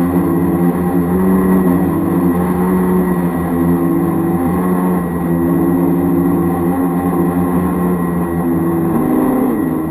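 Twin small brushed electric motors of a converted toy RC boat running, a steady whine that wavers slightly in pitch and dips briefly near the end.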